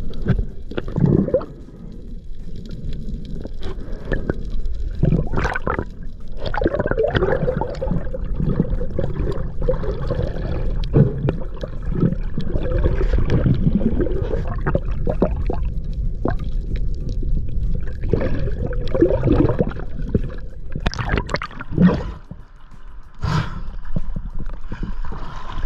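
Water heard through a camera held underwater: a steady muffled rumble with gurgling bubbles and irregular knocks.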